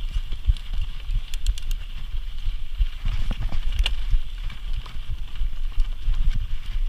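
Mountain bike riding down a rough dirt and rock trail: a low rumble of wind buffeting and ground noise on the rider's camera, with irregular clicks and rattles from the bike over bumps, including a short cluster of clicks at about a second and a half and a sharper one near four seconds.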